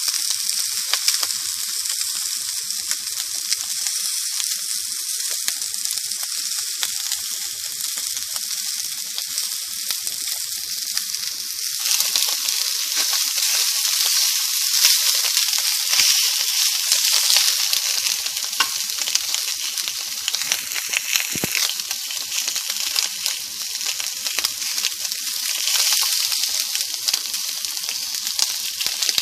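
Sausages sizzling and crackling in a frying pan, getting louder and fuller about twelve seconds in.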